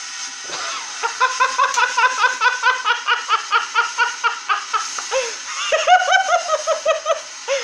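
Firework burning inside a CRT television set, giving out rapid whistling chirps, about four a second, that start about a second in and keep going.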